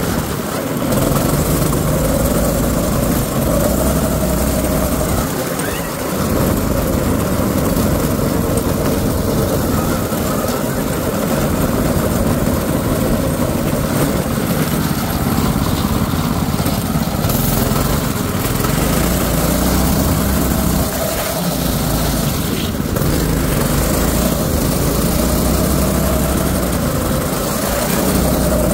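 Predator 6.5 hp single-cylinder four-stroke engine on a drift trike running while riding, its pitch rising and falling as the throttle changes, under a rush of noise.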